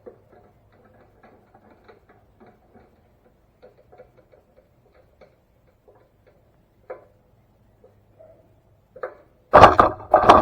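Faint, scattered clicks and ticks of small metal parts and tools being handled while the gas tank is fitted to a small Briggs & Stratton engine. About nine and a half seconds in come two loud, harsh spells of noise a little over a second long together.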